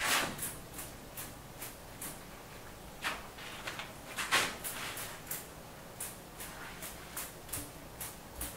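Hand trigger spray bottle squirting onto a wall: a short hissing spray right at the start, two more brief hisses about three and four and a half seconds in, with light scratchy ticks in between.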